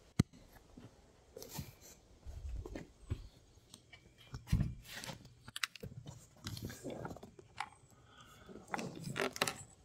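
Scattered handling noises: light clicks, knocks and rustles, with one sharp click just after the start.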